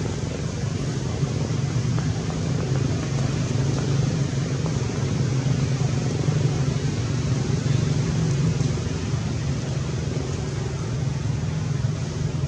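Steady low rumble with a hiss over it, like engine or fan noise.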